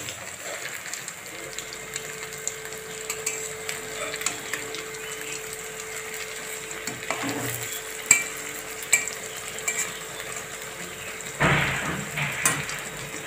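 Chhana patties sizzling as they fry in hot oil in a metal kadai while a spatula clicks and scrapes against the pan, turning them to brown the second side. There is a louder stretch near the end.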